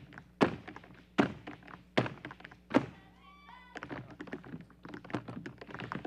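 Dancers' feet striking a stage floor: four heavy stomps evenly spaced about 0.8 s apart, then a brief high squeak and a run of rapid light taps, as in a group tap routine.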